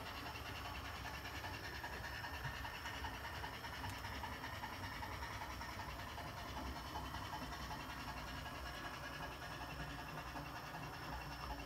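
O scale brass model Garratt locomotive running along the layout track, a steady, fast-repeating rhythmic sound over a low rumble.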